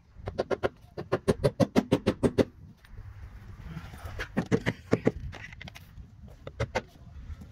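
Claw hammer tapping nails through the nailing strip of a vinyl siding panel into the wall: a fast run of light taps, about six or seven a second, for a couple of seconds, then two shorter runs. The nails are being set to float, left slightly proud rather than driven tight.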